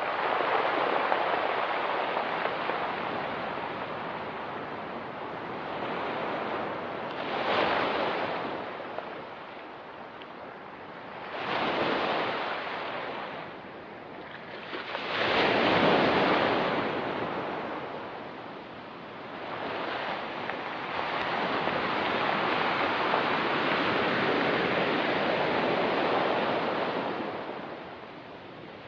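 Pacific Ocean waves breaking and washing up a rocky beach. The surf swells loudest about 8, 12 and 16 seconds in, then settles into a longer, steadier wash.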